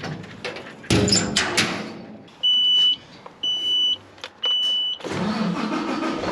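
A vehicle door shutting with a couple of knocks, then three even electronic warning beeps, each about half a second long and a second apart, then the engine starting and running.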